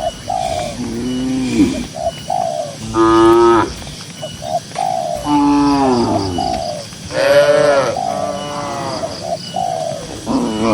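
Cattle mooing: four drawn-out calls, each about a second long, some arching and falling in pitch. Short, higher repeated notes fall between them, roughly once a second.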